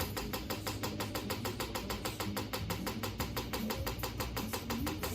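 Electronic chiropractic adjusting instrument firing rapid, evenly spaced clicking thrusts, about ten a second, against the neck to work the cervical spine.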